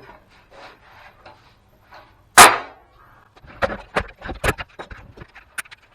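Parts of an old copier-printer being handled and pulled apart by hand: faint clicks, then one loud sharp knock about two and a half seconds in, followed by a quick run of small plastic and metal clicks and knocks.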